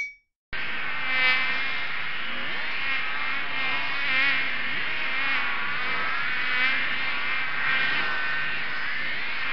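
A swarm of mosquitos whining: many high, wavering buzzes overlapping at a steady level with small swells, starting about half a second in.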